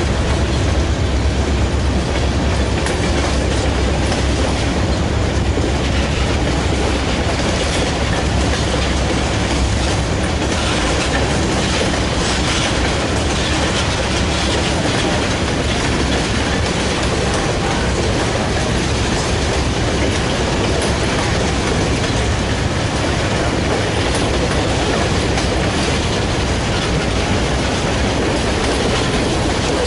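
Freight train of tank cars and covered hoppers rolling past at a steady speed: the continuous, even noise of steel wheels running on the rails.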